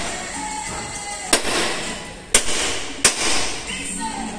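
Three sharp metal blows from a hammer striking the clamp at the hub of a truck's artillery-type spoke wheel, each followed by a brief ring. They knock the clamp loose after its nut has been backed off.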